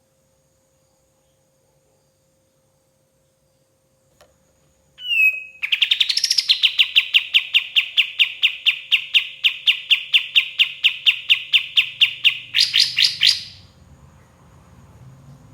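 A kapas tembak songbird singing: after a few seconds of silence, a short falling note, then a long, fast string of evenly repeated chirps, about four or five a second, ending in a few louder rising notes.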